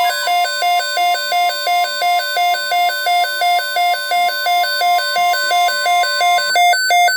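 Emergency weather alert tone: two pitches alternating rapidly, about three and a half times a second, over a fainter steady tone that fades out near the end. It stops abruptly, announcing a severe thunderstorm watch.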